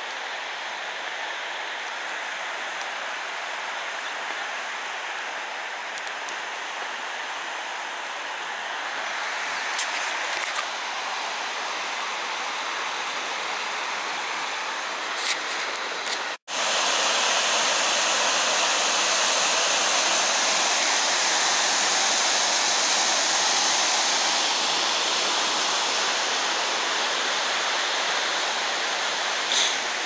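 Steady rush of falling water. It cuts out for a moment about halfway through and comes back louder. A few faint clicks are heard.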